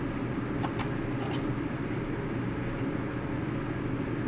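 Three faint clicks about a second in, from the plastic reusable 35mm film camera being handled while film is loaded, over a steady low background hum.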